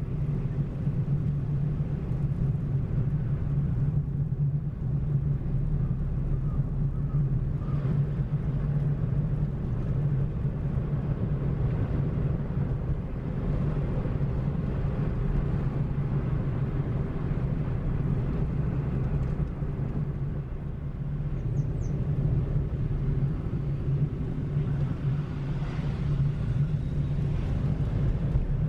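Car driving along a road, heard from inside the cabin: a steady low engine and road drone.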